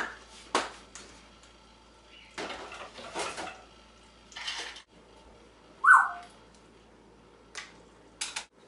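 African grey parrots making clicks and short scratchy noises, with one loud, short call falling in pitch about six seconds in.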